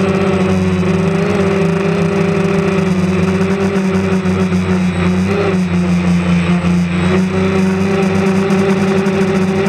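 DJI Phantom quadcopter's motors and propellers whirring, a loud steady hum picked up by the camera on the drone itself. The pitch wavers briefly about halfway through as the motors change speed.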